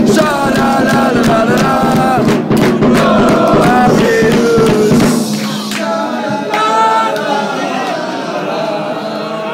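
Crowd of football supporters singing a chant together, with hand claps in the first few seconds. The singing grows quieter about halfway through.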